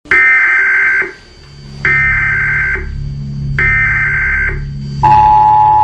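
Emergency Alert System broadcast tones: three one-second bursts of warbling high-pitched data tones, then the steady two-tone attention signal sounding from about five seconds in, over a low steady drone.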